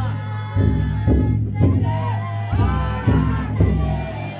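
Large taiko drum of a futon-daiko float beaten in groups of three heavy strokes about half a second apart, with a crowd of carriers chanting and singing over the beat.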